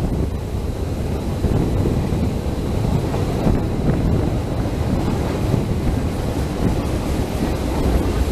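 A DEMU (diesel-electric multiple unit) passenger train running steadily along the track, heard from an open carriage window. The train's running noise mixes with wind buffeting the microphone.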